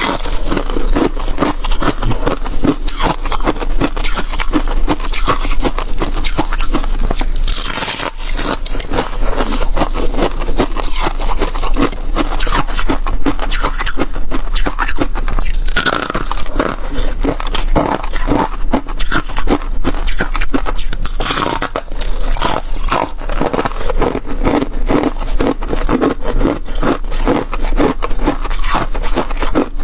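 Flaky frost-like ice being bitten and chewed close to the microphone: a dense, continuous run of crunching and scraping crackles.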